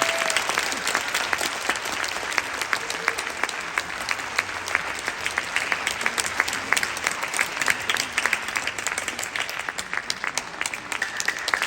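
An audience applauding steadily, many hands clapping at once, welcoming the choir to the stage.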